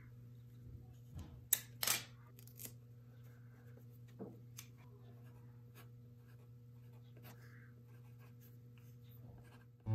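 Hands handling a paper card on the back of a wooden picture frame: two sharp rustling sounds about one and a half and two seconds in, then scattered light taps and scratches, over a steady low hum.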